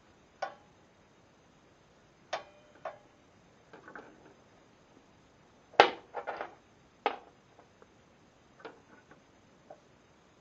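Scattered metallic clicks and knocks from a steel rule and square being set against a miter saw's blade and the saw being handled while the blade is checked for square. One knock rings briefly about two seconds in, and the loudest comes a little past halfway.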